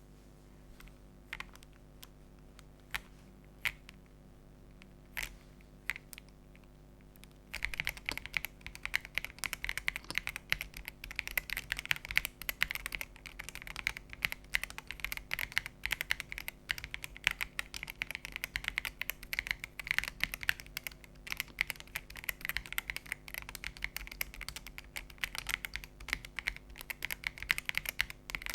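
Typing on a Zuoya GMK67 mechanical keyboard fitted with Womier Coffee switches and XVX jelly keycaps: a few separate key presses, then fast continuous typing from about seven seconds in.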